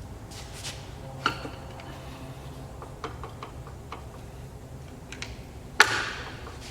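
Metal clanks and light clicks from the controls and handles of a Bridgeport J-head vertical milling machine being worked, over a low steady hum. There is a ringing metallic knock about a second in and a louder clank near the end.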